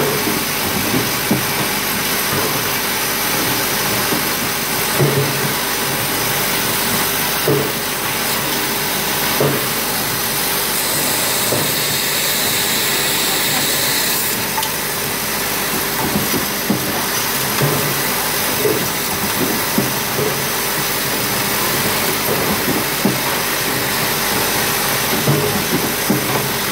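Ear lug automatic feeding spot welder at work on tin pail bodies: short, sharp metallic clacks every second or two over a steady loud hiss, which grows stronger and higher for a few seconds in the middle.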